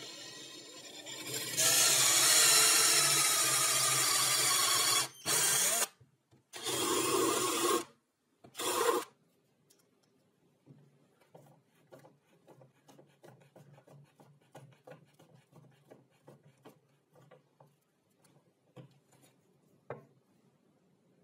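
Handheld power drill boring a twist bit through plywood. There is one long run of about three seconds, then three short bursts, the last ending about nine seconds in. After that only faint scattered clicks and taps remain.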